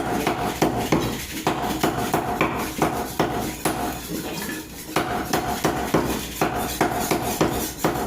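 Knife chopping through chicken on a cutting board: a run of sharp chops at an uneven pace of about two a second.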